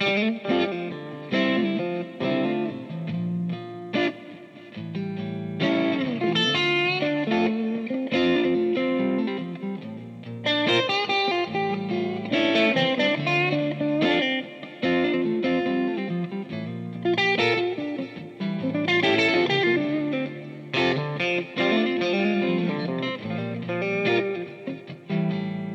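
Electric guitar playing melodic lines with quick runs over a low, steady accompaniment.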